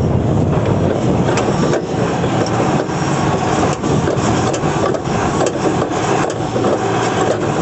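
Forklift's Isuzu 6BG1 six-cylinder diesel engine running steadily, heard close up, with scattered light knocks or clicks over it.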